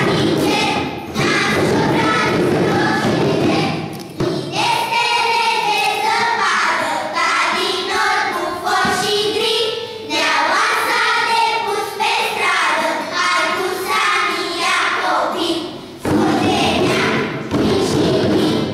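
Children's choir singing, with thuds beneath the voices.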